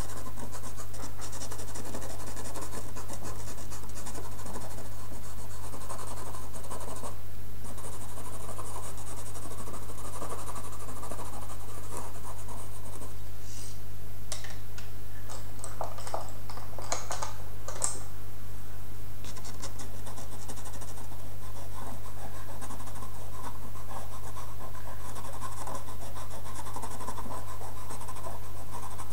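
Pencil shading on paper: a dry scratching of rapid back-and-forth strokes, with brief pauses, over a steady low electrical hum.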